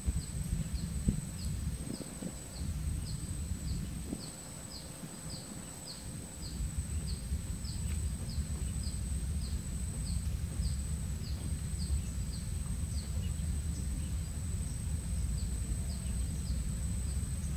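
Outdoor pondside ambience: wind rumbling on the microphone, a steady high insect drone, and a small bird repeating short falling chirps about twice a second, with a brief pause near the end.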